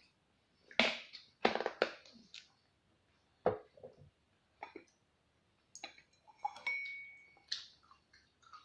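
Dishes and utensils clinking and knocking at a table, eight or so separate sharp strokes, one of which rings on briefly about two-thirds of the way through.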